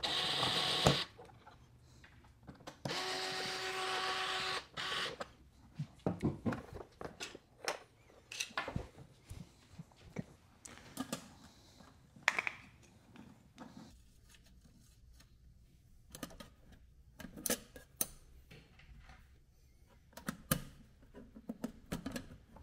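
A small electric driver whirring in two short runs, one about a second long at the start and one of nearly two seconds about three seconds in, as the robot is taken apart. Scattered clicks and knocks of the hard plastic shell parts and screws being handled follow.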